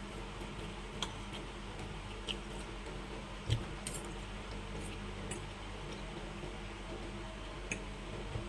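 Eating sounds: scattered light clicks and taps of utensils on a plate, with one louder dull knock about three and a half seconds in, over a steady low hum.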